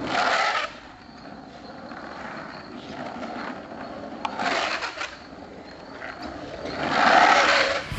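Skateboard rolling down an asphalt road, its wheels giving a steady rough rumble, with three louder rushes of wheel noise as the rider carves hard turns: at the start, a little past halfway, and near the end.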